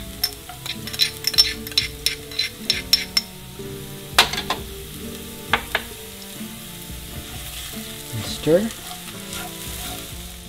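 Chopped onion and garlic sizzling in hot oil in a frying pan, with a utensil clicking and scraping against the pan as it is stirred. There is a quick run of clicks in the first few seconds, a few louder knocks around the middle, and a short rising squeak near the end.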